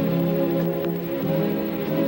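Slow orchestral music: held notes on bowed strings that shift pitch about once a second.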